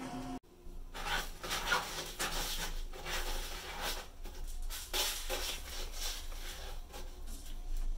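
A cat digging in granular litter in a plastic litter box, its paws raking and scattering the granules in a run of irregular scrapes.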